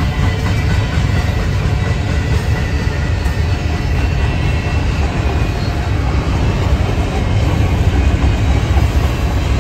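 Double-stack container cars of a freight train rolling past, a steady low rumble of wheels on rail.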